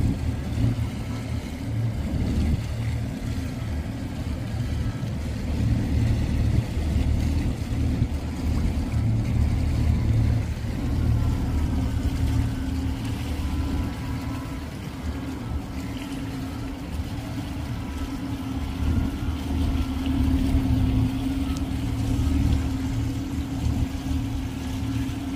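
An engine running steadily close by: a low rumble with a constant hum over it, the level rising and falling a little.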